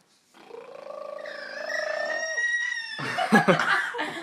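Pet bird vocalizing: a drawn-out call that rises slightly over about two seconds, then, after a short pause, a loud burst of harsh, scratchy chatter.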